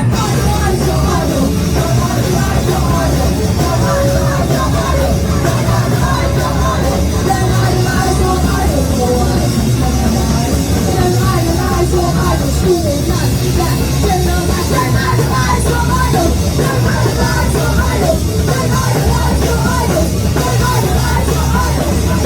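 Punk rock band playing live: loud distorted electric guitars, bass and drum kit, with shouted singing.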